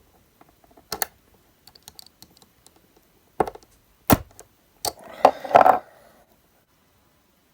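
Sharp plastic clicks and knocks as small LED-strip mounting clips are pried at with a thin screwdriver, four louder clicks spread through the first five seconds, then a brief scraping rustle.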